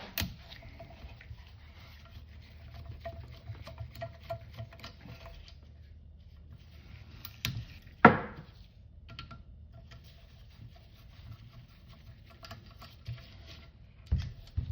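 Small clicks, taps and scrapes of a T20 Torx screwdriver working the screws out of an ABS module housing, with one sharp knock about 8 seconds in and another near the end.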